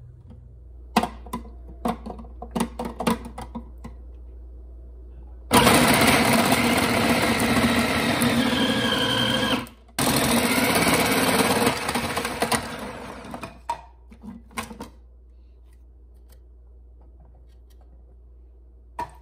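A few sharp clicks and knocks, then a small electric motor running loudly for about eight seconds, stopping briefly about halfway through, followed by a few more clicks.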